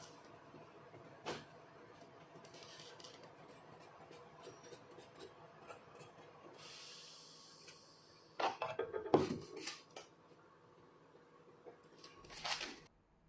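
Small metal parts being handled and rubbed on a workbench. A short scraping stretch comes about two-thirds of the way in, followed by a cluster of sharp metallic knocks and clatter, and a brief rattle near the end.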